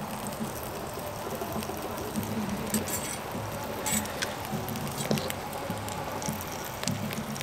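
Sausages sizzling in a frying pan on a small camping stove, with a few sharp clicks of metal utensils against the pan and bowl a few seconds in.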